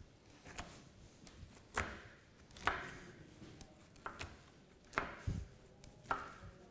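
Bench scraper cutting through a stiff almond-studded dough, its edge knocking against a granite worktop at each cut: a series of separate short taps, about seven, spaced unevenly.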